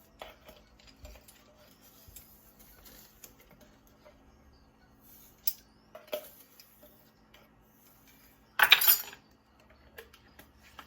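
Teaspoon clinking and scraping against a jar and dish while minced garlic is measured out, with a few sharp clicks and one louder clatter of utensils near the end.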